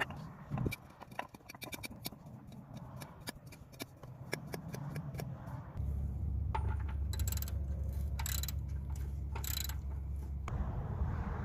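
Light metallic clicks and scrapes of hand tools and parts being handled, about four or five clicks a second for the first few seconds. Then a steady low rumble for about five seconds, broken by three short hisses.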